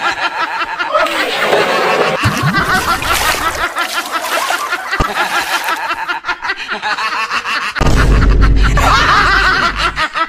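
People laughing and snickering. A louder, deeper stretch with a heavy thump-like onset comes in about 8 seconds in.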